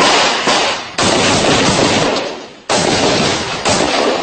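Gunfire in a firefight: loud, sudden reports about a second apart, each trailing off over roughly a second.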